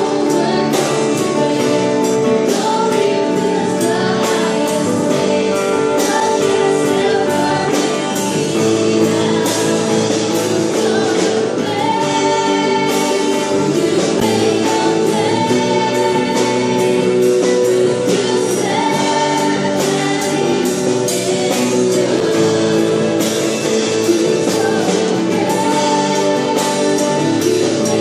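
Live worship band playing a gospel song: a woman singing lead over electric guitar, keyboard, bass guitar and a drum kit keeping a steady beat.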